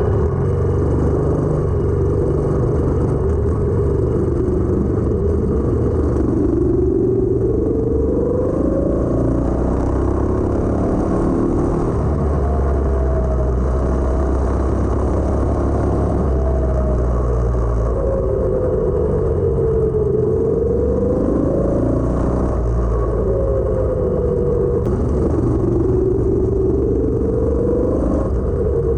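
212cc single-cylinder go-kart engine running, its pitch rising and falling over and over as the throttle opens and closes.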